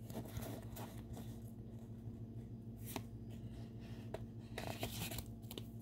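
Pokémon trading cards handled in the hands, the card stock sliding and rustling against itself with soft, scattered clicks as the stack is turned and fanned out.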